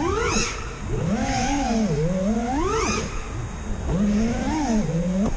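FPV freestyle quadcopter's T-Motor Velox 2207 brushless motors and propellers whining, the pitch rising and falling with the throttle. There are sharp climbs to a high whine about a third of a second in and again near three seconds, and a smaller rise and fall near the end.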